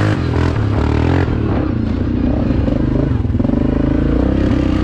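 Yamaha Grizzly 700 ATV's single-cylinder engine running under throttle as the quad rides across rough ground, its pitch rising and falling as the throttle opens and closes.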